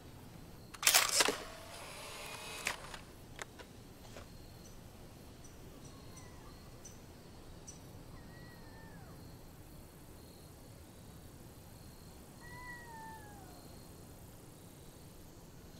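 Polaroid instant camera shutter snapping about a second in, followed by the camera's motor whirring as it ejects the print, then a few small clicks. Later, three faint meows, each falling in pitch.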